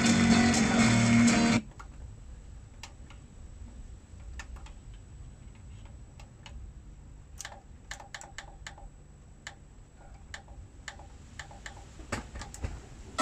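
An FM station playing through a Sherwood stereo receiver cuts off suddenly about a second and a half in. A string of light clicks follows as the receiver's front-panel preset and tuning buttons are pressed, the station staying muted while it changes frequency.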